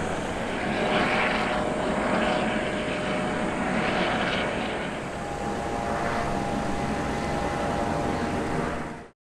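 A steady engine drone with a whine that holds its pitch from about a second in; it cuts off abruptly near the end.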